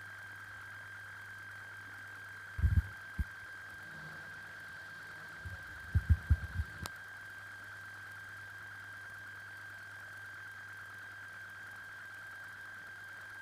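A steady high-pitched electronic whine over a low hum, with a few dull low thumps about three seconds in and a quick cluster of them around six seconds, ending in one sharp click.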